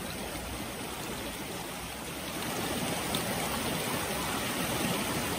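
Clear mountain stream flowing over rocks and gravel: a steady rush of water that grows a little louder about halfway through.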